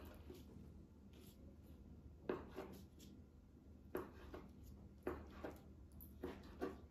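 Kitchen knife slicing cooked octopus on a plastic cutting board: faint knocks of the blade meeting the board, mostly in pairs about once a second, starting about two seconds in.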